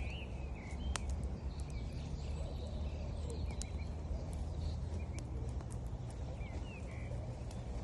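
Campfire wood crackling with scattered sharp pops, one sharper pop about a second in, over the steady low rush of a river, with birds chirping now and then.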